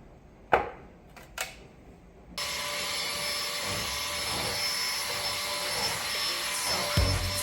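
LG CordZero A9 Air cordless stick vacuum switched on about two and a half seconds in and running steadily with a high whine. A sharp click comes about half a second in, and a few low knocks near the end.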